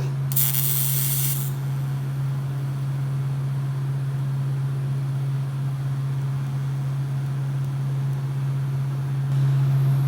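A steady low machine hum, with a short hiss of spray or air starting about half a second in and lasting about a second.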